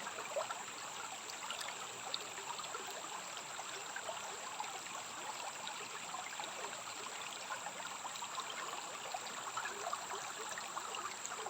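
Water running and trickling steadily in a rainforest stream, with a continuous high-pitched tone ringing over it.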